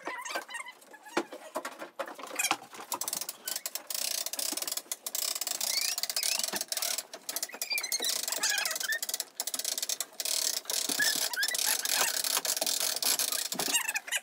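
Hand-cranked trailer winch being wound, its strap hauling a 300-plus-pound cast iron bathtub in a wooden crate up a plywood ramp: rapid ratchet clicking, with short high squeaks.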